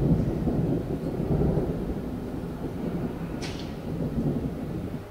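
Distant thunder rumbling, strongest in the first second or so, then slowly fading and dying away near the end.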